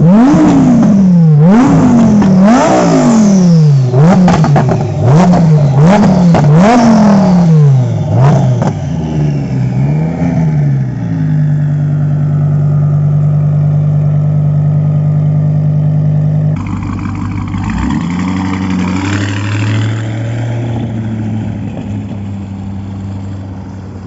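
A supercar engine blipped repeatedly while standing still: a rapid series of sharp revs rising and falling, then settling into a steady idle about eleven seconds in. Near the two-thirds mark a different, lower engine note takes over and grows fainter.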